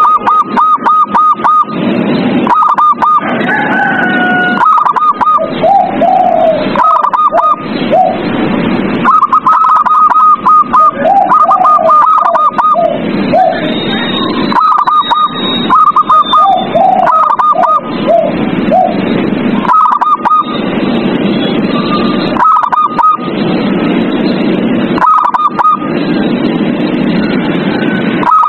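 Zebra doves (perkutut) calling: bursts of quick, evenly repeated high coo notes, alternating with lower rolling, wavering coos over a steady noisy background.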